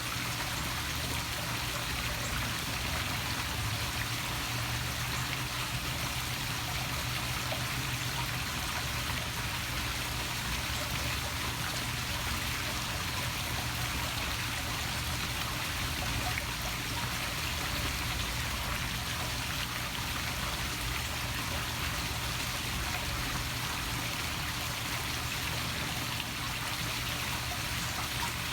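Poolside waterfall splashing steadily into a swimming pool, an even rush of falling water.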